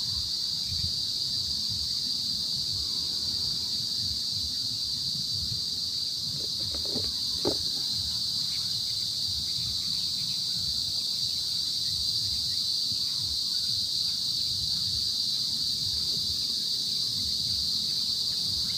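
Insects droning steadily in a high-pitched, unbroken chorus over a low rumbling on the microphone. A brief sharp sound stands out about seven seconds in.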